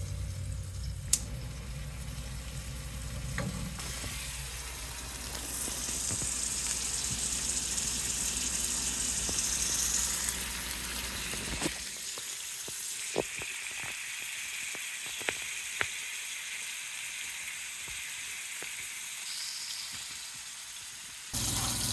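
A chicken patty frying in a hot pan, sizzling steadily just after being flipped onto its sauce-spread side, with a few sharp pops.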